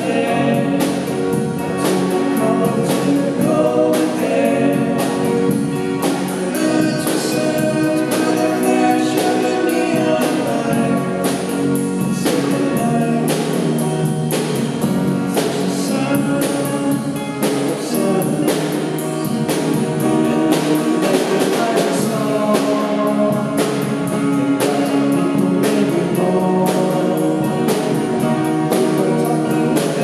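Live band music: a man singing lead into a microphone over electric bass, acoustic guitars, keyboard and a drum kit keeping a steady beat.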